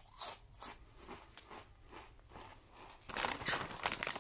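Potato chips crunching as they are chewed, a few separate crunches, then about three seconds in a chip bag crinkles loudly and rapidly as it is handled.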